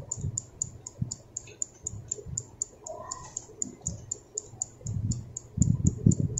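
Countdown timer ticking steadily, about four ticks a second. Under it are low muffled thumps of eating, loudest near the end.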